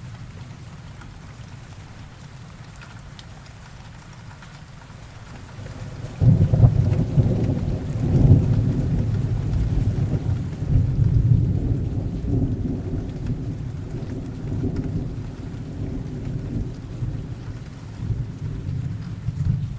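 Rain sound effect: steady rainfall, joined about six seconds in by a long, low rolling rumble of thunder that swells and then slowly eases off.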